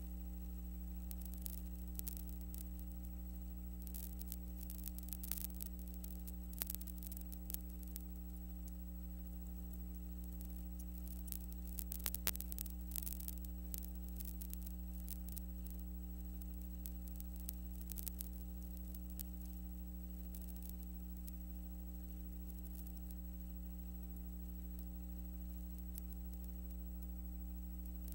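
Steady electrical mains hum with a buzzing set of higher overtones and scattered crackling clicks, clustered most densely about twelve seconds in. The film has no sound of its own, so this is only the noise of the empty audio track.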